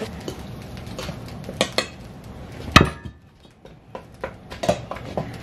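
Metal cooking utensils knocking and scraping in stainless steel pans as ground beef is stirred. There are several sharp clanks, the loudest nearly three seconds in.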